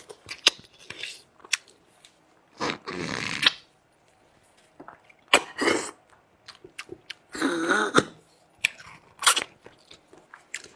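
Close-miked eating of lamb leg bone marrow: wet chewing and clicking, broken by about four louder noisy stretches of half a second to a second, the longest near the start and in the middle.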